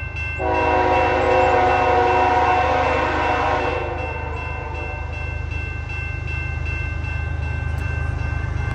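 A locomotive's Nathan K5HL five-chime air horn sounds one long blast of about three seconds, over the steady rumble of the diesel locomotive. A grade-crossing bell rings quickly and evenly throughout.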